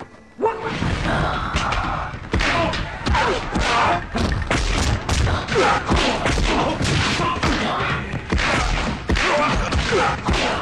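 Film fight sound effects: a dense, rapid run of punch and body-impact thuds, with many men shouting over them. It starts about half a second in, after a brief lull.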